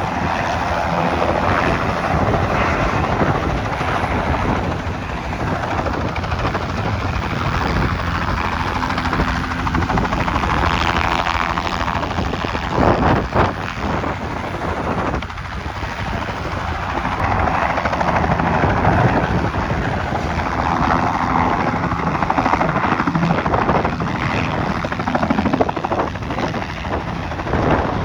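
Helicopter rotor and engine running: a steady, loud drone.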